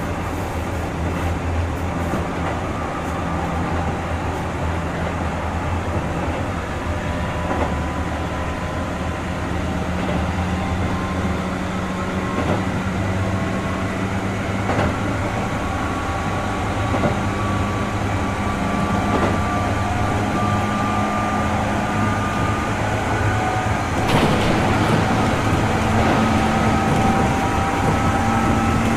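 Keihan 2600 series 0-bandai electric train running, with a motor and gear whine that rises slowly in pitch as the train gathers speed over the steady rumble of wheels on rail. A few knocks from the track, and the sound grows a little louder near the end.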